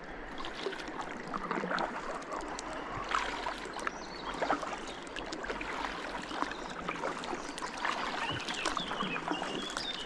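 Kayak paddles dipping and splashing in the water, with irregular drips and splashes over a steady wash of water.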